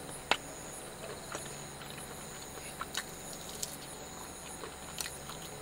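Faint steady high chirring of night insects, with a few light clicks and taps scattered through.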